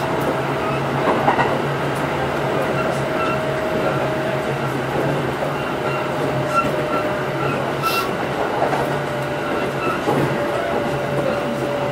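Running sound of a Kintetsu 8810 series electric train heard from inside the car. Wheels clack over rail joints under a steady motor whine that dips slightly in pitch about halfway.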